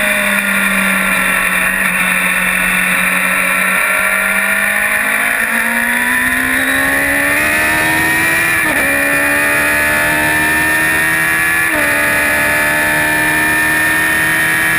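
Radical SR3 race car's motorcycle-derived four-cylinder engine heard from the cockpit. The note eases off and holds low for the first few seconds, then climbs under acceleration. It drops sharply twice, about nine and twelve seconds in, at upshifts, climbing again after each.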